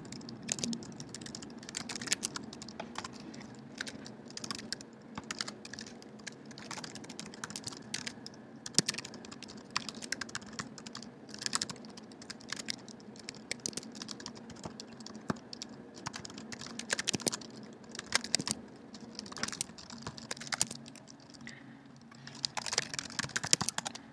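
Typing on a computer keyboard: irregular runs of key clicks broken by short pauses, with a quick flurry of keystrokes near the end.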